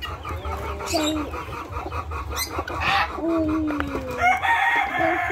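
Chickens clucking and calling: short gliding calls, a fast run of about seven repeated clucks a second over the first two seconds, and a louder, longer call about four seconds in.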